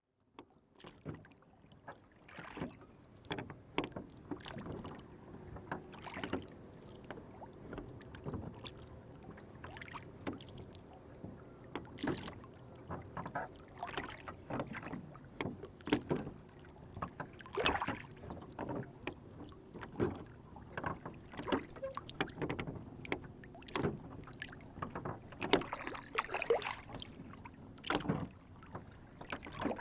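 Lake water lapping and slapping against a small rowboat as it rocks, with many irregular small knocks and splashes.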